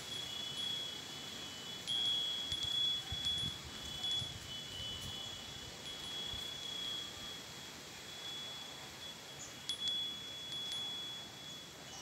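Bell-shaped wind chimes ringing in the breeze: two close high tones sounding together and overlapping, with a few light clinks as they are struck, loudest about two to three seconds in.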